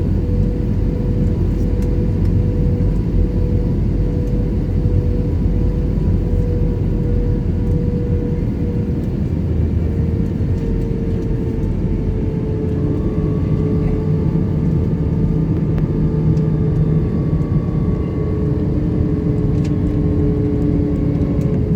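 Airbus A321 cabin noise: a steady, loud jet-engine and airflow drone heard from inside the cabin, with a thin whining tone that shifts slightly lower in pitch about ten seconds in.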